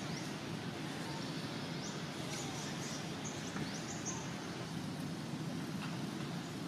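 Outdoor ambience with a steady low background noise. Over the first few seconds a bird gives a series of short, high, upward-sweeping chirps.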